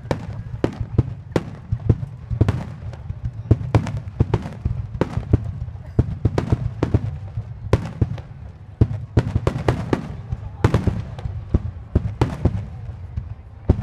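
Fireworks barrage: rapid, irregular sharp cracks and bangs of aerial shells bursting, several a second, over a continuous low rumble of launches and echoing booms.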